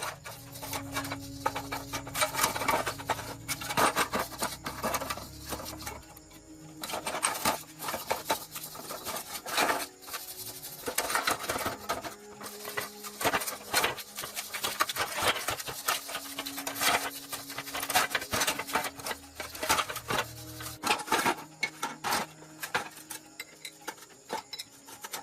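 Workshop clatter: a rapid, irregular run of metallic clicks and taps as parts are handled and worked, with a low hum underneath during the first few seconds.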